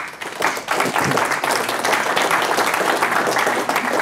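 Audience applauding, building up over the first second and then steady.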